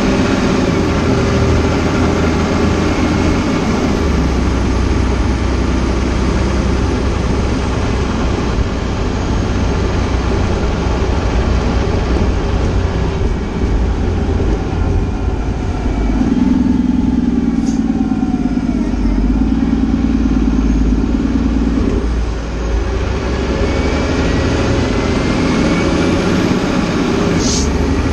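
Fire engine driving on an emergency response: steady engine and road noise throughout, with a stronger steady low tone for about six seconds past the middle and faint rising and falling tones at the start and near the end.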